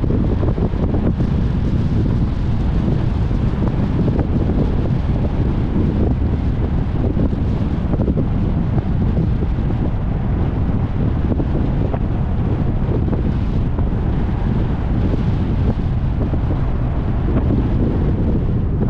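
Wind buffeting the microphone of a camera on the hood of a moving car, a steady low rumble with road noise underneath.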